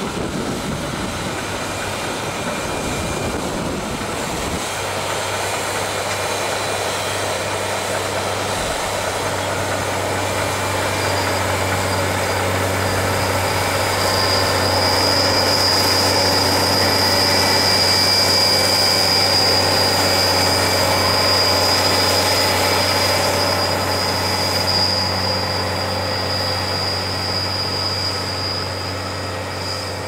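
Fendt 718 Vario tractor running steadily under load while pulling an eight-furrow plough and driving a front-mounted rotary cultivator. The sound grows louder toward the middle. A high steady whine joins about a third of the way in.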